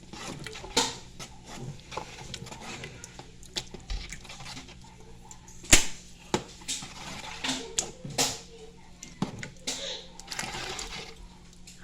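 Kitchen clatter of utensils and cookware: scattered sharp clinks and knocks, the loudest about six seconds in, with children's voices in the background over a steady low hum.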